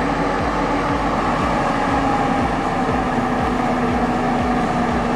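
An engine running steadily under load, with a held tone that sags slightly in pitch and a regular low pulsing.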